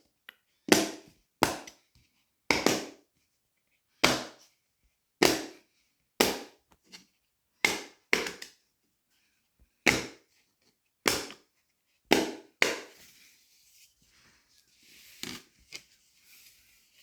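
Silicone push-bubbles of a Dimpl Pops fidget toy being popped one at a time: about a dozen sharp pops roughly a second apart, then a few fainter clicks near the end.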